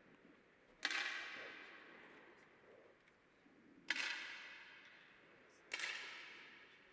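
Three single 10 m air rifle shots fired down the range, each a sharp crack followed by a long echoing tail in the hall: about a second in, about four seconds in and about six seconds in.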